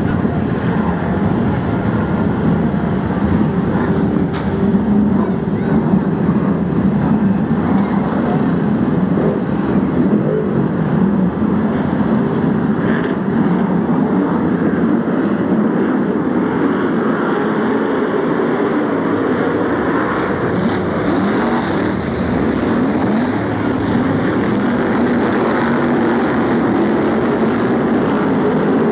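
A pack of BriSCA F1 stock cars with V8 engines running together on the track, a loud, steady engine din with no break.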